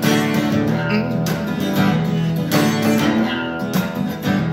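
Acoustic guitar strummed, chords ringing on between strokes that come about every second.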